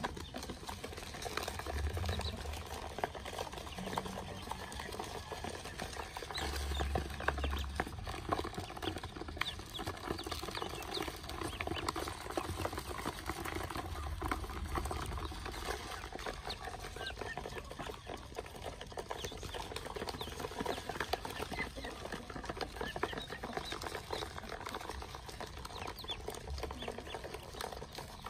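A basinful of ducklings peeping constantly in many overlapping short calls, with the patter and scrabble of their feet on the plastic basin.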